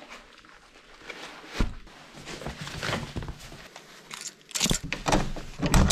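Rustling, crinkling and knocking of clothes and running gear being packed into a backpack, with irregular handling clicks that grow louder and busier near the end.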